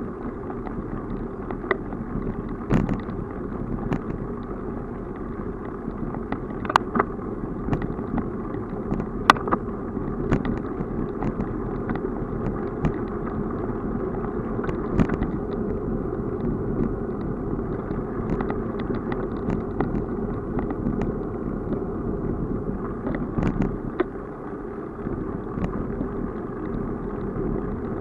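Steady wind and rolling noise from a bicycle moving along an asphalt path, with scattered light clicks and knocks.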